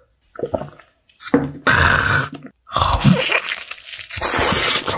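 A person biting into and chewing sauced chili fried chicken, with wet mouth noises coming in several separate bursts.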